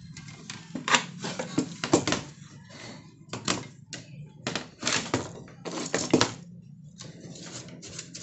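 Irregular clicks, knocks and scrapes of hands handling a CRT television's chassis and wiring harness, over a low steady hum.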